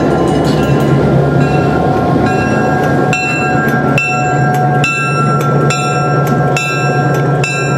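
EMD GP7 diesel locomotive's 16-cylinder two-stroke engine running with a steady low hum at close range. From about two seconds in, train wheels click over rail joints in a regular rhythm, roughly once a second.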